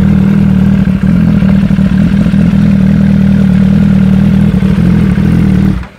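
Sport bike fitted with an Akrapovic shorty exhaust idling steadily, a loud even low rumble. It cuts off abruptly just before the end.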